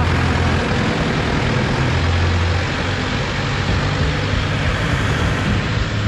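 Engine running steadily with a low hum that shifts slightly in pitch a couple of times, over a steady mechanical noise.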